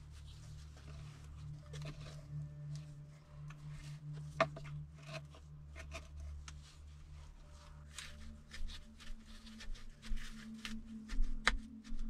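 Hand caulking of gaps in a dugout's wall: scattered sharp clicks, light taps and short scrapes, the loudest about four seconds in and again near the end, over a low steady hum.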